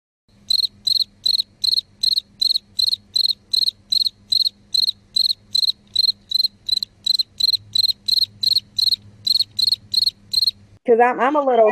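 Rhythmic high-pitched chirping at one steady pitch, about three chirps a second, over a faint low hum. The chirping stops shortly before a voice comes in near the end.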